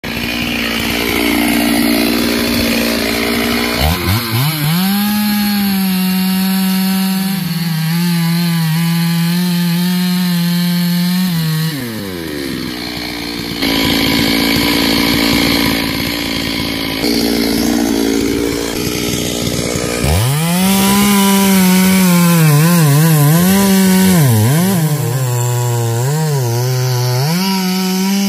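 Stihl chainsaw idling, then revved to full throttle about four seconds in and cutting into the base of a large mahogany trunk. It drops back to idle around twelve seconds in and revs up again about twenty seconds in, its pitch dipping again and again as the chain bogs down in the wood.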